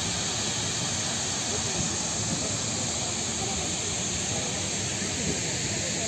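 Steady rushing hiss of a tall artificial waterfall sheeting down a stepped stone face, with indistinct crowd voices underneath.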